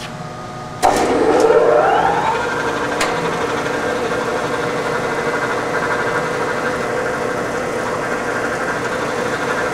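Herminghausen SR-15 centerless grinder switched on: a click about a second in, then a rising whine as the motor and grinding wheel spin up, settling into a steady running hum. A second sharp click comes about three seconds in.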